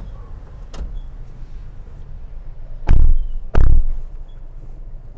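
Car doors shutting: two heavy thumps about two thirds of a second apart, after a lighter click, over a steady low rumble.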